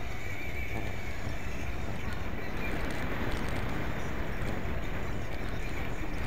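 Steady wind rumble on an action camera's microphone while riding a bicycle at speed, mixed with tyre and road noise and faint scattered ticks and rattles.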